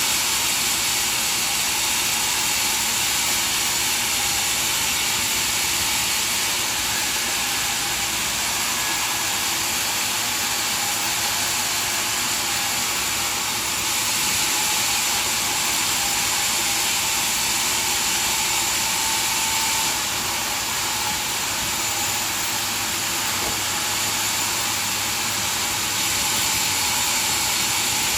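Sawmill saw running and cutting wood: a steady, hiss-like machine noise with small shifts in level every few seconds.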